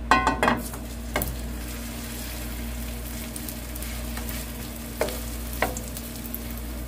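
Potato pancake batter sizzling in hot oil in a nonstick frying pan as it is spooned in and pressed flat, with a metal spoon clinking and tapping against the pan a few times. The sizzle is the batter starting to fry.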